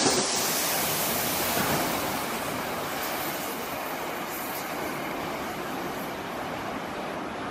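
Nankai 8300 series electric train running in along the line, a steady noise of wheels on rail that gradually softens.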